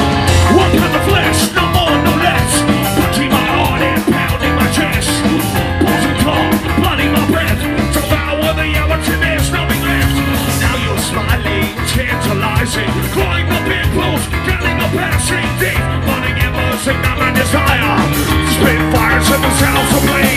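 Live rock band playing loud: electric guitar, bass guitar and drum kit, with no break.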